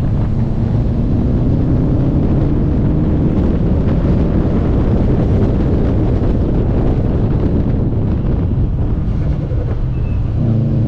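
A car driving hard with wind noise on the microphone. The engine note climbs early on, drops away about eight to ten seconds in, then comes back strongly near the end.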